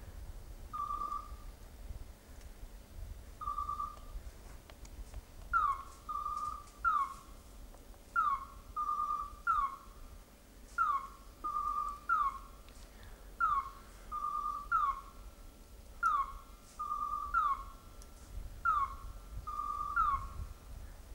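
Electronic beeper collars on hunting setters. A flat beep repeats every couple of seconds; about five seconds in, a second signal of short falling chirps joins it, repeating roughly every second and a half between the beeps.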